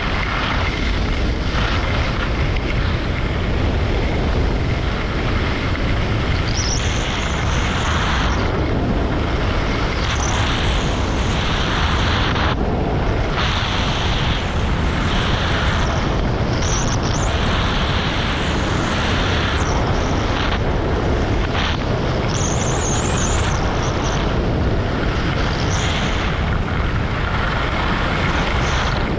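Wind buffeting a GoPro's microphone at skiing speed, with the hiss and scrape of skis on packed snow swelling every few seconds as the skier turns.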